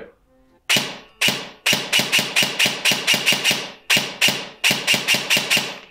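A&K MSK airsoft electric rifle (AEG), its gearbox fitted with an 18:1 gearset and run on an 11.1 V LiPo, firing quick semi-automatic shots. Two single shots come first, then rapid strings of sharp clacks at about six a second, with a brief pause about four seconds in.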